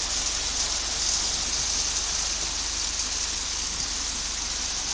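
Concrete mixer running, a steady hissing rush over a low hum.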